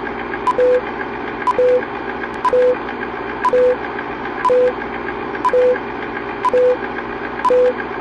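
Old film-leader countdown sound effect: an old film projector running with a steady whirr, a click and a short beep once a second as each number counts down.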